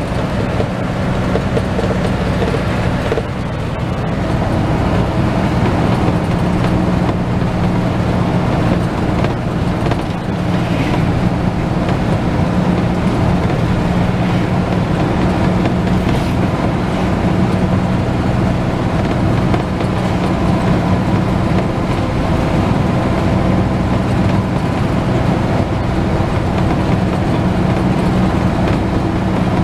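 Medium bus's engine and road noise heard from inside the cabin while driving, a steady loud drone with a low engine hum.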